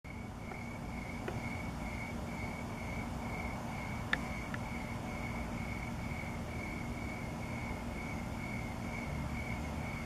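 Crickets chirping in a steady rhythm, about three chirps a second, over a low background rumble. A single sharp click about four seconds in.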